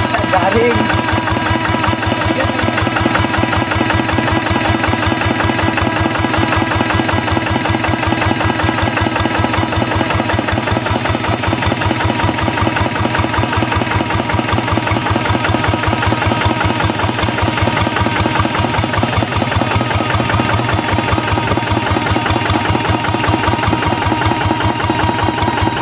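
Single-cylinder diesel engine of a Quick G1000 Boxer hand tractor running steadily at idle, with an even, rapid firing rhythm.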